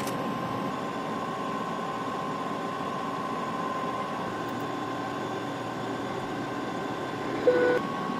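Steady background noise inside an airliner cockpit on approach: an even hiss with a faint steady whine. A short steady tone sounds about seven and a half seconds in.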